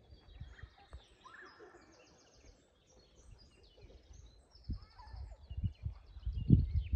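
Songbirds chirping and singing in many short calls and trills. Low thumps come in and grow louder near the end.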